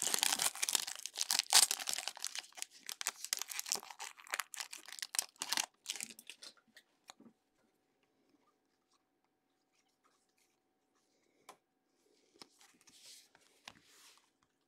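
Foil wrapper of a baseball-card pack being torn open and crinkled as the cards are pulled out, dense and loud for about the first six seconds. After that come only a few faint taps and clicks of the cards being handled.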